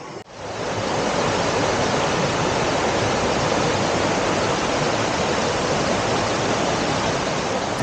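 Spring water gushing and cascading over mossy rocks in a shallow mountain stream, a steady, even rush of water that swells up just after the start.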